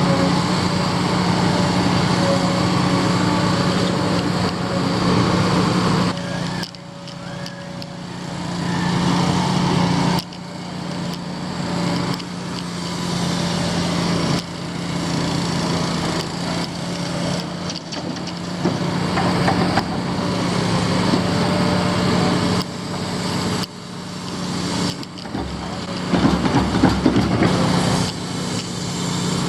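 Diesel engine of heavy construction machinery running steadily with a droning hum. The level drops suddenly several times and climbs back, and a louder, rougher stretch comes near the end.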